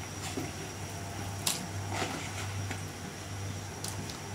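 Slices of sour eggplant (terung asam) dropped by hand into a pot of boiling broth, a few short splashes and clicks against the pot, over a steady low hum.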